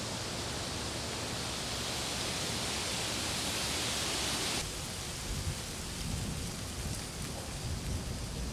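Outdoor ambience: a steady rushing hiss that cuts off abruptly about halfway through. It gives way to a quieter background with irregular low wind buffeting on the microphone.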